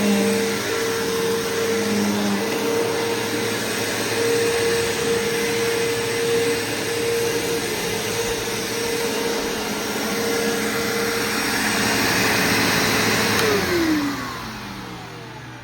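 Bissell Powerforce Bagged upright vacuum (model 3522) running steadily, with a steady motor whine over its airflow noise. About 13 seconds in it is switched off, and the motor winds down with a falling pitch.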